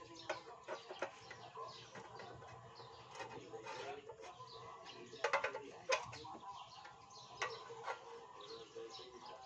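Scattered sharp taps and clinks of hand tools on an engine, loudest twice around the middle, with birds chirping and chickens clucking in the background.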